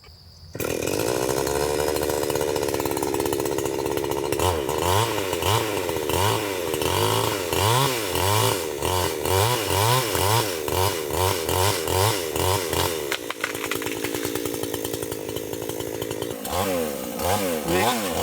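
Chainsaw engine starts suddenly about half a second in and runs, then is revved up and down in regular pulses about twice a second, settles to a steadier run for a few seconds near the end, and picks up the pulsing revs again.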